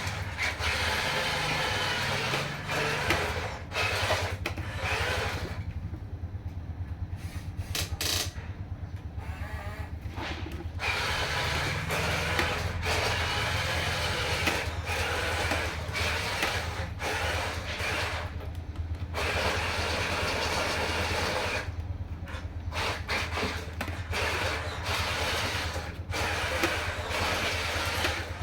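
Radio-controlled model bulldozer's electric motors and plastic gearboxes whirring and grinding with a steady low buzz. The upper grinding noise stops and restarts several times as the machine halts and moves off again.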